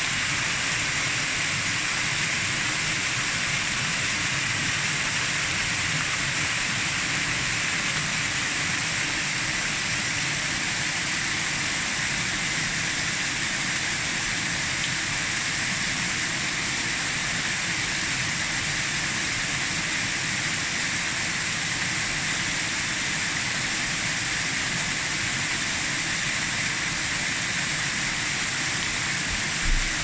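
Bigăr waterfall's many thin streams of water falling off a moss-covered rock into the pool below, a steady splashing hiss. A brief low bump comes just before the end.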